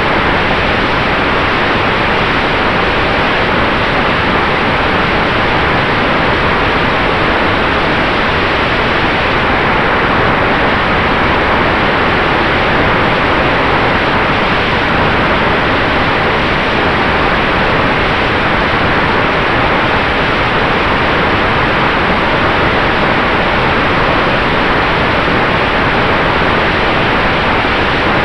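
Steady, loud rush of airflow and propeller noise from an RC model Maule airplane in flight, heard from a camera mounted on the plane, with a faint steady tone from its motor underneath.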